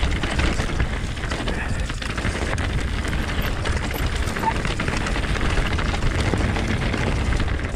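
Orbea Rise H15 e-mountain bike rolling fast down a dirt singletrack: a steady low rumble of tyres and air rushing past the microphone, with constant fine rattling and clicking from the bike over the bumps.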